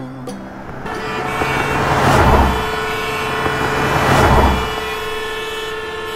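City traffic sound effect: two cars whooshing past about two seconds apart, over a steady car horn sounding on and on.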